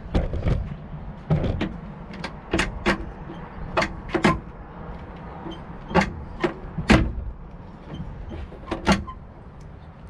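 Front glass door of a Bobcat T66 skid steer cab being swung open and shut by its handle, the latch and frame giving repeated sharp clicks and knocks as the newly refitted door is checked for closing and latching properly.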